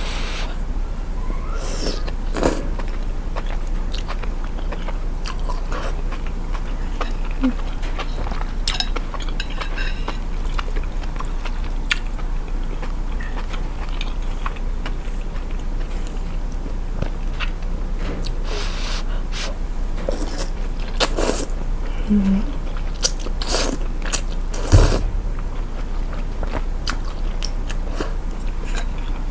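A person eating noodle soup with stewed beef close to the microphone: chewing and biting sounds with scattered short clicks and bursts, the loudest about 25 seconds in, over a steady low hum.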